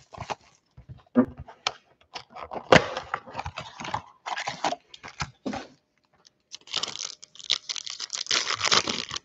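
A Donruss Optic football card blaster box being opened and its foil card packs torn open by hand: irregular crackling and tearing of cardboard and wrapper, with denser crinkling in the last couple of seconds.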